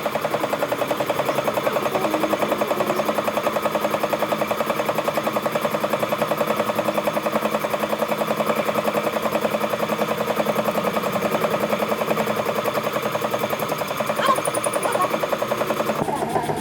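A machine running steadily with a fast, even pulsing beat, unchanged until just before the end.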